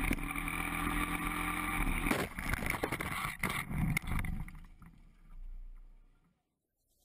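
Motorcycle engine running at a steady pitch, then a crash about two seconds in: the engine sound cuts out and a series of knocks and clattering impacts follows over the next two seconds as the bike goes down, after which the noise fades away.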